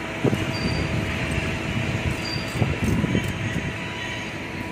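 Boom truck's engine and hydraulics running steadily as the aerial basket is moved, a low rumble with a steady hum and a few low knocks.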